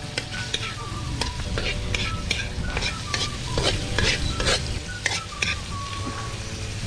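A spatula repeatedly stirring and scraping in a kawali (wok) while food sizzles in the hot oil, sautéing with garlic and onion.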